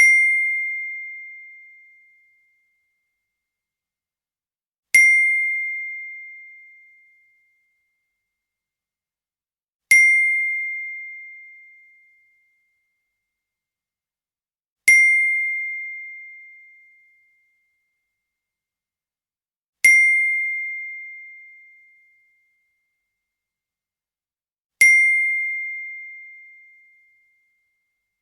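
iPhone text-message alert tone: a single high ding, sharp at the start and ringing out over about two seconds. It plays six times, once every five seconds.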